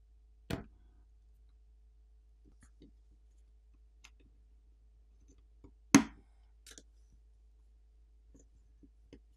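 Scattered clicks and light taps of a plastic pry pick and a phone's plastic loudspeaker assembly being pried loose and lifted from the midframe. A sharp click comes about half a second in and the loudest about six seconds in, with faint ticks between.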